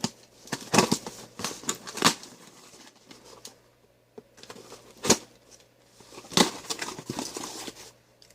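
Taped toy packaging being pulled and torn open by hand: irregular crinkling, scraping and sharp snaps. The loudest snaps come about five and about six and a half seconds in.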